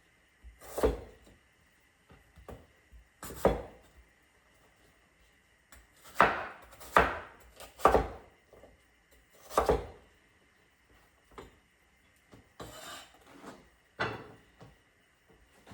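Kitchen knife chopping a gold potato on a cutting board: about eight separate cuts at an uneven pace, some coming in quick pairs and others after pauses of a couple of seconds.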